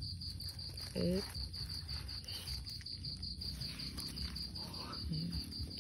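Insect chirping steadily: a high, rapid, evenly pulsed trill, with a brief voice sound about a second in.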